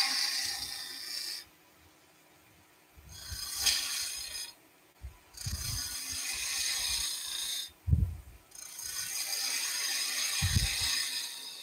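Turning chisel cutting a small bead into a pale wood blank spinning on a lathe: a hissing, scraping cut in several passes of one to three seconds, with near-silent pauses between and a few short low knocks.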